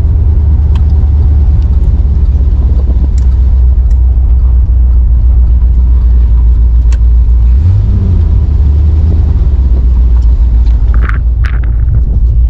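1971 Corvette's V8 engine running with a deep, steady rumble, its note rising briefly about eight seconds in. Two short higher-pitched sounds come near the end.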